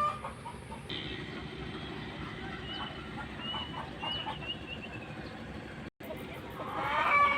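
Chickens clucking, with one louder call near the end, and small birds chirping faintly in between. The sound drops out briefly for a moment shortly before the loud call.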